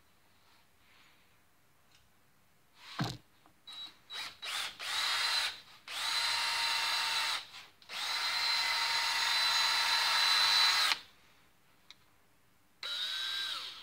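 Cordless DeWalt drill drilling into a steel steak-knife blade held in a vise: a few short trigger blips, then several runs of steady motor whine a few seconds each, stopping and starting, with the last run winding down in pitch near the end. The bit is slowly biting into the hard steel.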